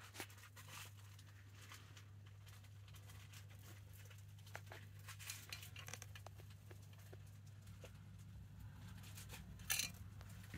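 Faint rustling and small clicks in a hamster cage's wood-shaving and paper bedding, with one louder rustle near the end, over a steady low hum.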